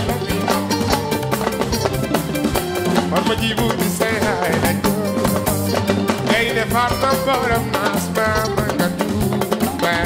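Live Senegalese mbalax band playing: drums and hand drums driving a busy rhythm under bass, keyboard and guitar, with a male lead voice singing over it, clearest from about six seconds in.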